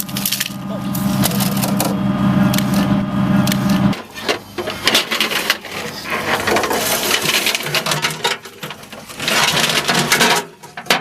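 A LAV-25's engine running with a steady drone, shut off abruptly about four seconds in. After it stops, irregular metallic clinking and rattling.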